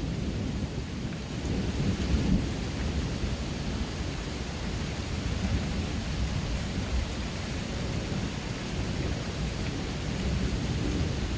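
Steady rushing outdoor noise with a deep low rumble and a fainter hiss on top, swelling briefly about two seconds in and again near the end.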